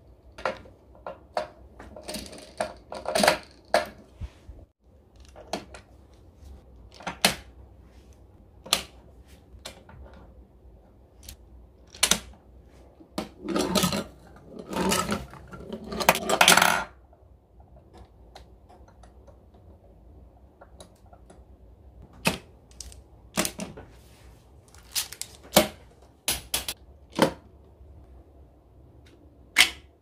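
Plastic magnetic building tiles and marble-run track pieces clicking and clacking by hand as they are snapped and set into place. The knocks are sharp and irregular, with a longer stretch of clattering plastic about halfway through.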